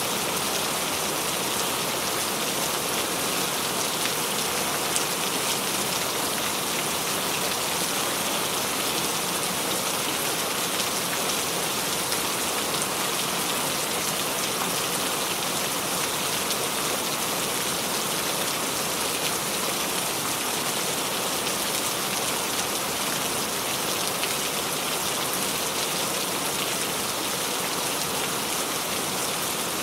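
Steady rain falling, an even hiss of drops on a surface with faint individual drop ticks.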